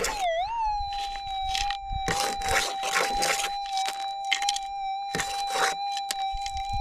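Gold metal detector's steady high threshold tone, wobbling at the start as a scoop of dirt holding a target passes over the coil, with a slight dip about four seconds in. Over it come several gritty crunching rushes as handfuls of dirt and rock are sifted and poured over the plastic scoop.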